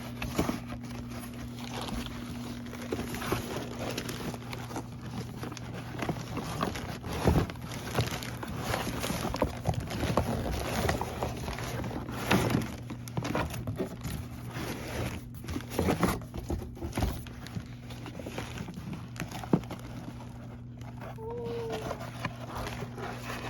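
Packaging and cardboard being handled while unboxing a coffee maker: irregular crinkling, rustling and light knocks over a steady low hum.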